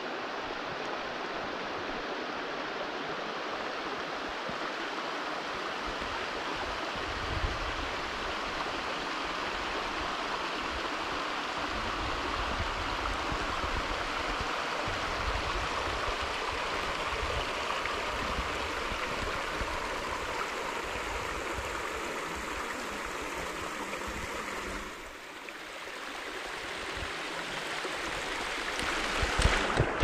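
Steady rush of a stream running over rock at the top of a waterfall, dipping briefly about three-quarters of the way through.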